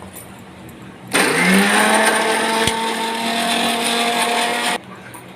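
Electric mixer grinder grinding green chillies and garlic into a paste. The motor spins up about a second in with a rising hum, runs steadily for about three and a half seconds, and cuts off suddenly near the end.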